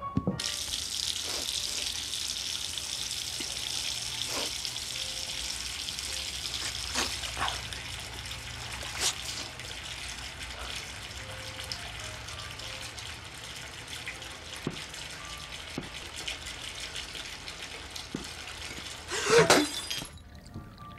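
Water running steadily from a tap into a washbasin, with small splashes as hands scoop it onto a face. Near the end there is a brief loud burst, and then the running water cuts off suddenly.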